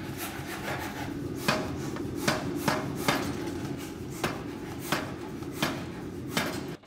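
Beche power hammer running with a steady machine drone and striking red-hot steel on its die in about eight single blows at uneven intervals. The sound cuts off suddenly near the end.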